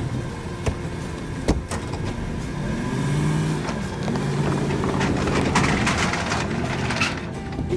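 An engine running, its pitch rising and falling several times, with a few sharp knocks in the first two seconds.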